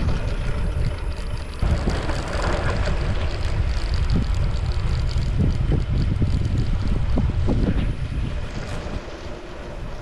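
Wind buffeting the microphone of a moving bicycle's camera, a heavy low rumble that eases near the end.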